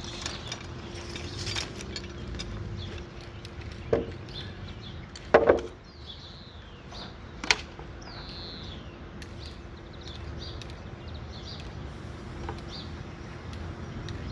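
A few hard knocks on timber foundation supports as they are worked into place: a loud double knock in the middle, with single ones just before and after it. Birds chirp faintly between the knocks.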